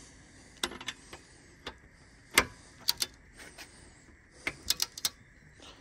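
Sharp metallic clicks and knocks as a socket on a click-type torque wrench is fitted to a nut clamped in a bench vise and tightened to 175 foot-pounds. There is one loudest click about two and a half seconds in, a quick pair just after, and a cluster of four clicks near the end.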